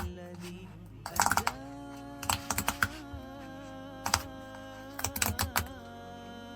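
Quick clicks and crackles of a cardboard product box and its packaging being handled and opened, in four short clusters, over soft background music.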